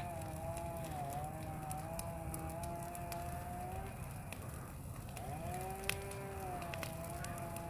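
Burning brush pile crackling with scattered sharp pops, one louder pop about six seconds in, over a low rumble. A long wavering tone runs through it, breaking off about four seconds in and returning a second later.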